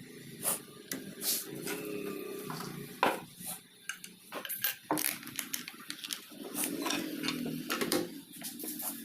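Irregular clicks and light metallic clattering of small parts and tools being handled, with stretches of low rubbing or scraping in between.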